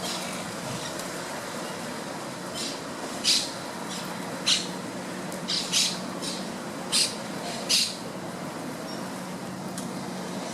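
A bird giving a series of short, harsh squawks, about one a second, over a steady background hiss and low hum.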